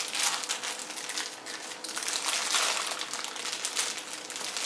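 A clear plastic bag crinkling and rustling in a steady run of fine crackles as it is opened by hand.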